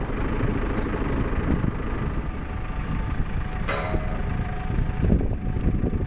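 Diesel engine of a JCB backhoe loader running steadily with a low rumble, and a brief sharper sound about two-thirds of the way in.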